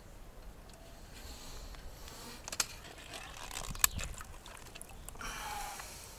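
Rubber-band speargun being loaded: latex bands stretched back along the gun and hooked onto the shaft. A few sharp clicks, the loudest about four seconds in as the band seats into the shaft notch.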